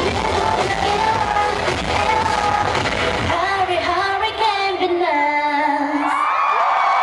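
Electro-pop dance track played loud over a concert sound system with a woman singing. About three seconds in the beat drops out, leaving her voice alone with a few sliding notes.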